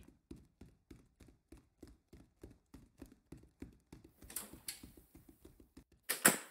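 Hurried footsteps thudding about three times a second, quickening past the middle, then one loud bang near the end.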